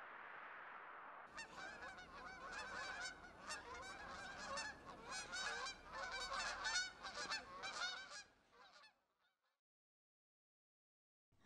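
A steady hiss, then a flying flock of geese honking, many calls overlapping, starting suddenly about a second in and fading out around nine seconds.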